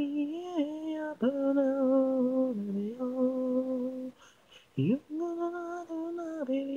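An unaccompanied solo voice singing a slow melody in long held notes, with a short break about four seconds in.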